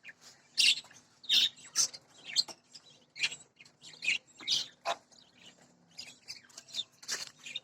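Budgerigars chirping: a string of short, high, separate calls, about two a second, with no steady pattern.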